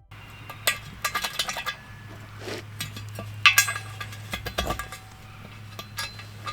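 Metal clinks and knocks from hardware being handled as an aluminum stair-railing post is set over drilled anchor holes, over a steady low hum.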